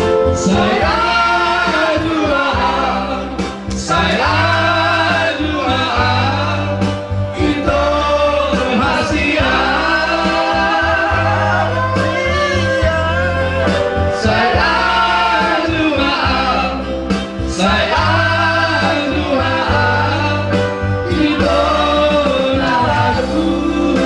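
A song: a singer's phrases over instrumental backing with a steady bass line, in a gospel style.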